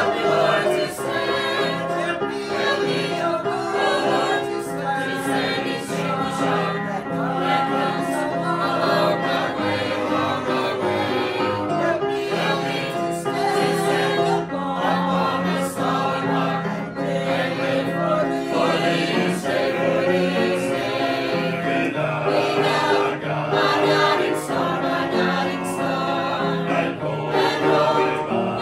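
A choir singing a gospel hymn with instrumental backing, continuous and full.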